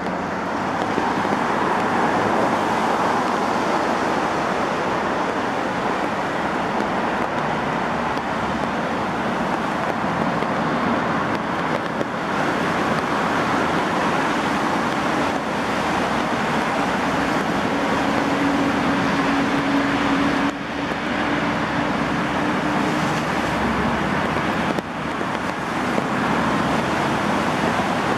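Heavy rain falling steadily on pavement and foliage, a dense even hiss. A low steady hum joins for a few seconds past the middle.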